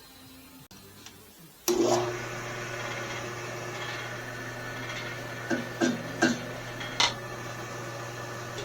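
An electric motor switches on about two seconds in and then runs steadily with a low hum. A handful of sharp knocks come over it a little past the middle.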